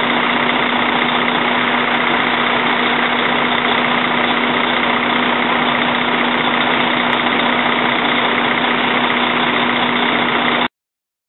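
Fire tanker running steadily with a constant hum, while water rushes through its discharge pipe into a portable drop tank. Cuts off abruptly near the end.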